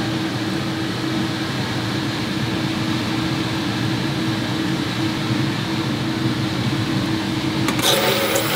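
Steady hum of a running motor, such as a kitchen machine or fan. Just before the end, a rattling clatter sets in over it.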